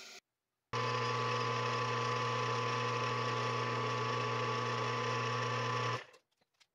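Metal lathe running steadily while turning down an M10 threaded rod into an insert: an even motor hum with a higher steady whine. It cuts off suddenly about six seconds in, followed by a few faint clicks.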